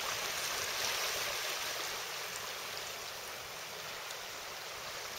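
Steady rushing hiss of wind and water on an open bay.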